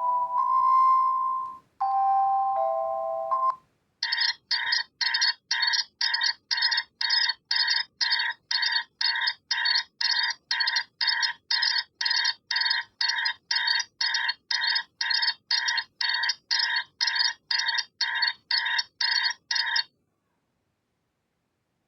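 Reeder P13 Blue smartphone playing its preset tones: a short melody of held electronic notes ends about three and a half seconds in. After a brief gap comes a fast, evenly repeating electronic beep, about two and a half a second, which stops abruptly near the end.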